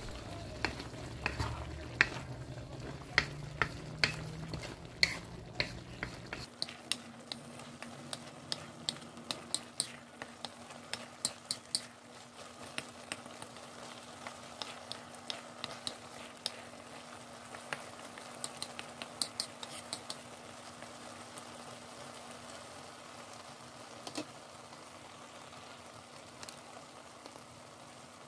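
Wooden spatula stirring eggplant and scallops in a metal wok, its strokes clicking and scraping against the pan over the sizzle of the simmering sauce. The clicks come thick and fast for the first twenty seconds or so, then thin out to the sauce sizzling on its own.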